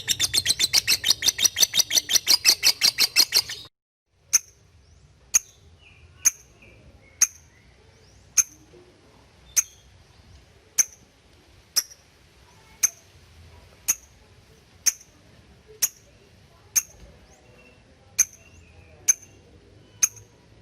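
Lovebird's rapid chattering trill (ngekek) at about ten notes a second, cutting off abruptly about three and a half seconds in. After a short gap, a lovebird gives single sharp chips about once a second, the 'ngetik' call.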